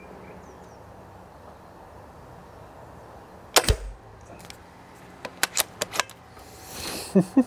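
Remington T-Rex PCP air rifle firing a single shot through its built-in moderator, a sharp crack with a low thud a little over three seconds in. About a second and a half later comes a quick run of four or five sharp clicks as the bolt is worked to chamber the next pellet, and two more sharp clicks with a short breathy rush near the end.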